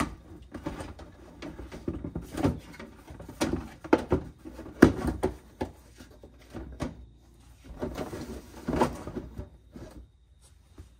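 Plastic inner fender liner being flexed and pushed into a truck's wheel well: irregular knocks, scrapes and clicks of plastic on plastic and metal, the loudest about five seconds in, dying away near the end.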